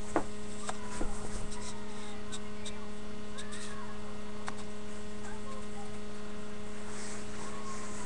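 Steady electrical mains hum in a webcam recording, with a few sharp clicks and knocks from the camera being handled, most of them in the first second and a half and one more near the middle.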